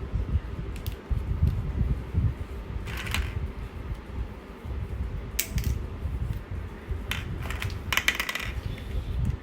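Hard plastic toy pieces clicking and rattling as they are fitted together, with a few sharp clacks scattered through, over a steady low rumble.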